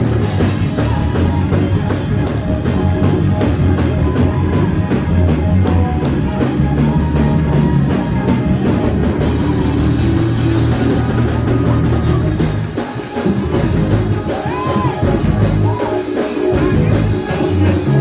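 Band music with drum kit and bass, and a voice singing short lines in places.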